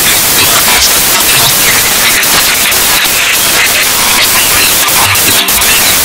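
A song distorted into loud, steady white-noise hiss, with faint bass notes and traces of vocals just showing through underneath.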